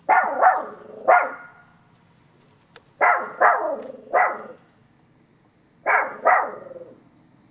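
Small dog, a Pekingese–Chihuahua mix, barking in short bursts: two barks, then three, then two. It is alert barking at a car it hears.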